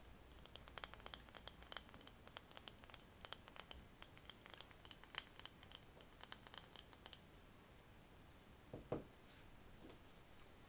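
Fingers tapping and scratching lightly on a small glass candle jar: a long run of quick, crisp, quiet ticks that stops about seven seconds in. About two seconds later the jar is set down with a single soft knock.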